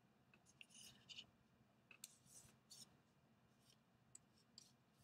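Near silence, with a few faint rustles and ticks of card stock being handled.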